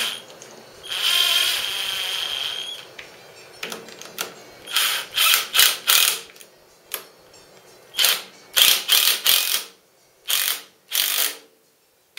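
Handheld power drill driving bolts into the ball screw's end mount on a mill table: one run of about two seconds about a second in, then several groups of short bursts as the bolts are run in and snugged.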